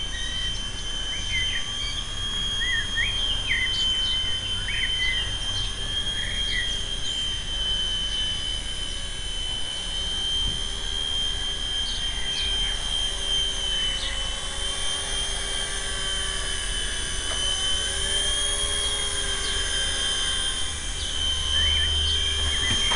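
Carson EC145 DRF micro RC helicopter's small electric motor and rotors whining steadily, the pitch wavering a little as the throttle changes. Birds chirp now and then over it.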